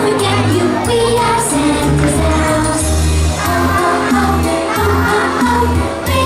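Group singing of a Christmas song over a backing track with a pulsing bass line and jingle bells keeping the beat.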